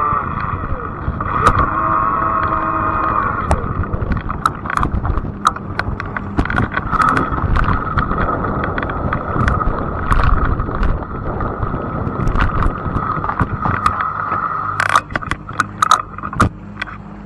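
Fat-tire e-bike in motion: a steady electric-motor whine over a low rumble, with many sharp rattling clicks. Near the end the whine stops and a quick burst of clicks follows as the bike comes to a stop.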